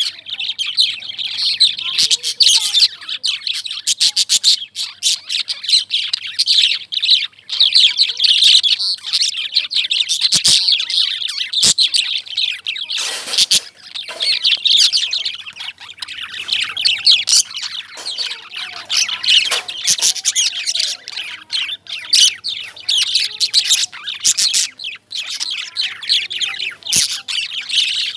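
Several caged lovebirds chirping nonstop, with rapid, overlapping high-pitched chirps and sharp squeaks. There is a brief scratchy burst of noise about halfway through.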